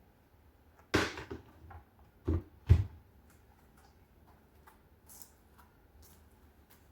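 Three knocks: one about a second in, then two close together near the three-second mark, the last the loudest, with faint small clicks between.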